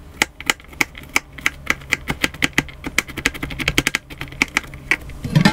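Kitchen knife chopping garlic on a plastic cutting board: rapid, uneven blade strikes on the board, several a second.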